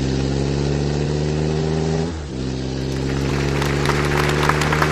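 Car engine sound effect running steadily with a low, even drone, dipping briefly about two seconds in, then picking up again with a rattling clatter over it in the second half.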